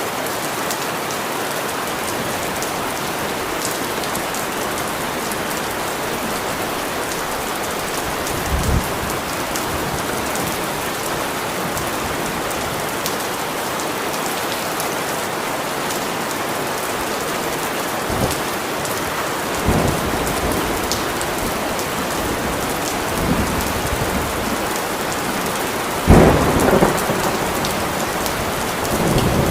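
Steady rain falling, with several short low rumbles of thunder; the loudest comes near the end.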